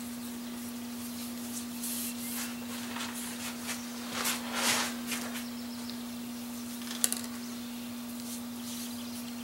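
Cloth pad wiping shellac over the painted bed of a vintage Singer sewing machine: a few soft swishing rubs, the loudest about four to five seconds in, and one sharp click near seven seconds, over a steady low hum.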